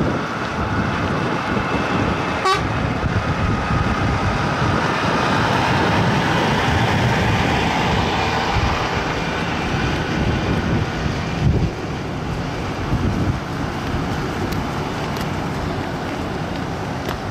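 Heavy-haul diesel tractor unit pulling a long multi-axle modular trailer past, its engine running and many tyres rolling on the road in a steady mix.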